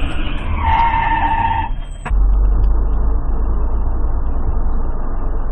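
Steady low rumble of a moving car's engine and road noise, with a held steady tone lasting about a second near the start. About two seconds in, the sound cuts abruptly to a different stretch of the same kind of steady vehicle rumble.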